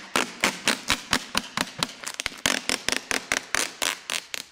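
Black adhesive vinyl film being peeled off a boat hull and bunched in the hand, crackling in quick sharp clicks, about six a second.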